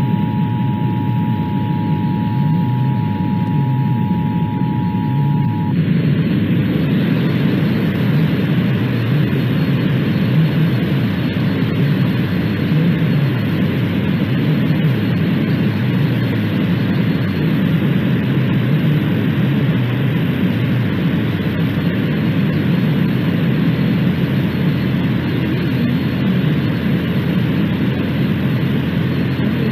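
Emergency Alert System two-tone attention signal, two steady tones sounding together over heavy static, which stops about six seconds in. Loud, steady hiss-and-rumble static of a weak broadcast reception carries on after it.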